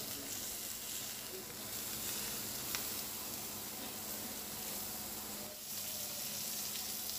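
Raw minced-meat kebabs sizzling steadily on a hot ridged grill plate, with a single light click a little under three seconds in.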